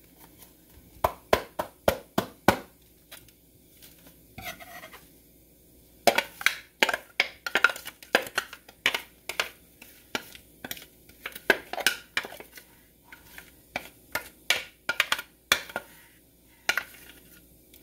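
Irregular clusters of sharp taps and knocks as a food processor bowl is tapped and scraped out over a glass baking dish, shaking buttered graham cracker crumbs loose into it.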